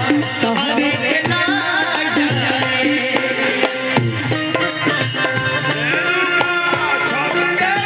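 Live Bhojpuri stage-show music at full volume: a band playing a wavering melody line over busy, quick percussion, with little or no singing.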